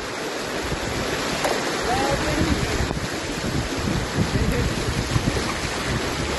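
Floodwater from a burst reservoir dam rushing and churning in a strong current over a flooded road, with wind buffeting the microphone in gusts.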